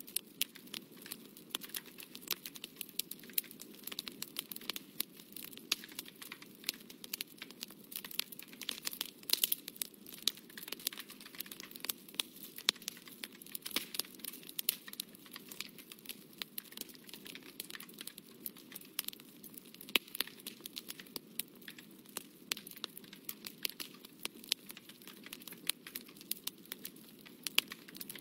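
Dense, irregular crackling and crinkling over a low, steady hiss, with no pause or change.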